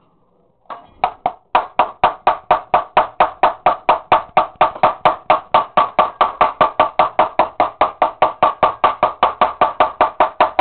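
A large kitchen knife chopping rapidly and evenly on a cutting board, about five chops a second, starting about a second in.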